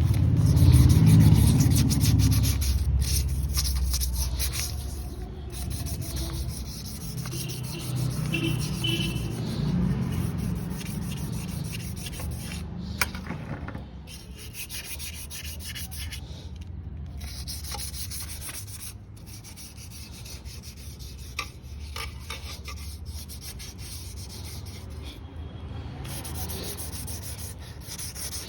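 Continuous rubbing and scraping, like a part being sanded or rubbed down by hand, with a louder low rumble in the first few seconds.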